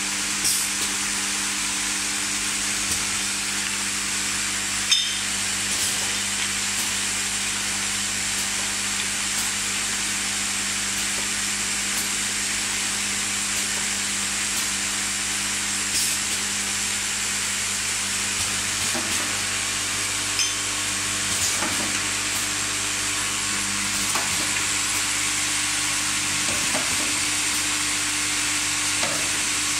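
Automatic cooking-oil bottle filling and capping machine running: a steady hiss over a low motor hum, with a few sharp clicks now and then.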